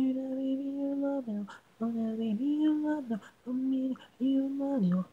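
A cappella vocal track with no instruments: one voice sings held, mostly steady notes in five short phrases, each under about a second and a half, with brief breaths between them.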